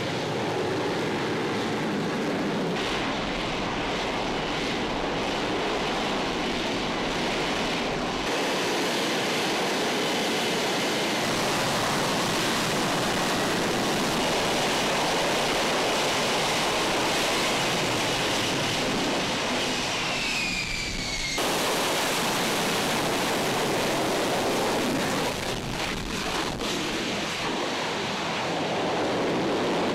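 F-35B Lightning II's F135 jet engine running in hover and short-takeoff mode: a steady, loud rushing jet noise. The noise changes abruptly twice, about 8 and 21 seconds in, and a short falling whine is heard just before the second change.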